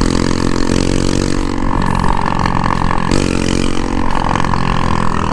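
Suzuki Shogun's single-cylinder four-stroke engine running with no muffler, an open exhaust while riding. The engine note shifts with the throttle and dips briefly about three seconds in before picking up again.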